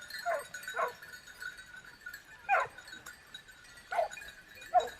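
A dog barking: five short, separate barks at uneven intervals.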